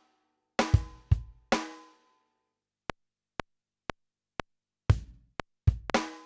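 Sampled acoustic drum kit (Kontakt Factory Library's Funk Kit) played from a MIDI keyboard. A few kick and snare hits with ringing tones come first, then four short ticks about half a second apart, then more kick and snare hits near the end.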